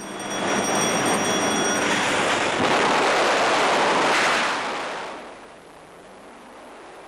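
Loud rush of freefall wind on the microphone as skydivers leave an aircraft's open door, over the plane's steady engine drone, which drops away within the first two seconds. About five seconds in the rush eases to a quieter steady wind.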